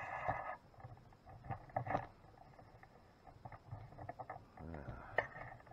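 Handling noise from a camera being settled on a tripod: a short rustle at the start, then scattered light clicks and knocks with a quiet stretch in the middle.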